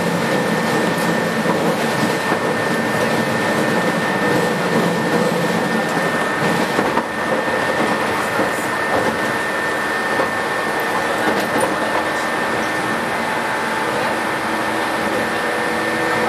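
Cabin running noise of a 117 series electric train under way: a steady rumble of wheels on rail with the hum of its traction motors and a constant high-pitched tone. The lower motor hum tones fade about halfway through and a new one comes in near the end.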